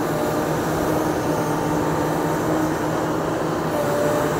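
Diesel engines of a Komatsu PC360LC excavator and a Volvo A30 articulated dump truck running steadily as the excavator dumps a bucket of sand into the truck's bed, with a short higher-pitched whine near the end.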